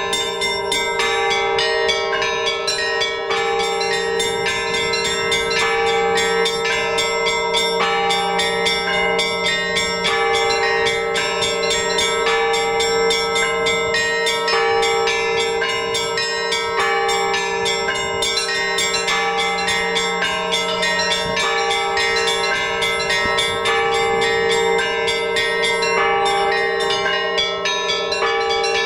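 Orthodox church bells rung together in a continuous peal: quick, dense strikes of small high bells over the steady ring of larger, deeper bells.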